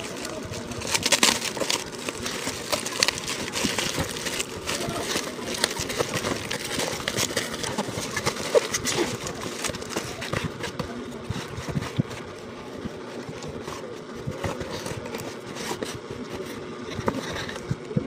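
Crackling and rustling of plastic wrap and a cardboard box as a boxed electric kettle is unpacked by hand, busiest in the first half.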